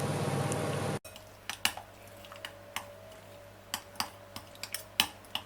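A microwave oven running with a steady hum, which cuts off about a second in. Then a utensil clicks and taps against a bowl at irregular intervals, chopping up part-cooked scrambled egg.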